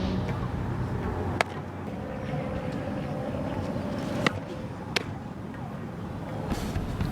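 Sharp cracks of a softball being struck or caught: one about a second and a half in, then two more close together around four to five seconds in, over steady outdoor background noise.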